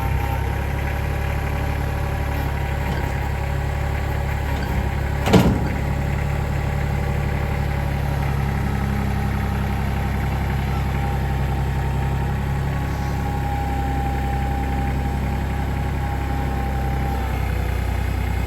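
An engine running steadily at idle, with a single sharp knock about five seconds in.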